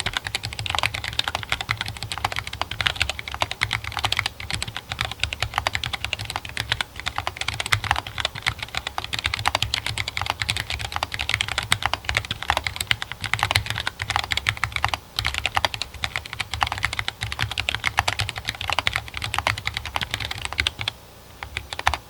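Continuous fast typing on a Treadstone32 mechanical keyboard with stock Gateron Ink Yellow linear switches and MDA-profile keycaps: a dense, irregular run of keystroke clacks that stops about a second before the end.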